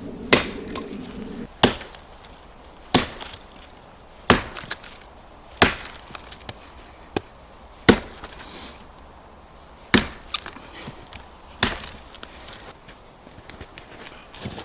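Wood being chopped: a run of sharp chopping blows, one every second or two, with lighter knocks in between.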